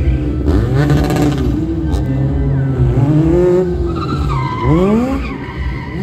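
Stunt motorcycle's engine revving up and down repeatedly as it is ridden through a stunt, with a hiss of tyre squeal about half a second in and a sharp rising rev near the end.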